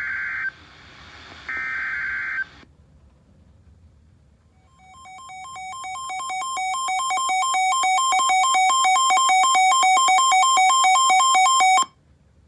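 NOAA Weather Radio SAME digital data bursts, each a harsh buzz about a second long, announcing a new alert. About five seconds in, a weather radio's alarm starts: fast, even electronic beeping that grows steadily louder, holds, and cuts off abruptly near the end.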